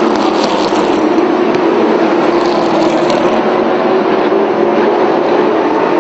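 Late model stock cars' V8 engines running at full speed as a pack passes, a loud steady drone with no break.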